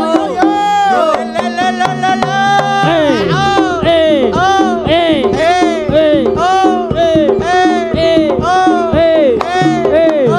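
Live East Javanese jaranan music from a gamelan ensemble: quick hand-drum strokes and steady ringing metal-gong tones under a melody that keeps sliding up and down in pitch.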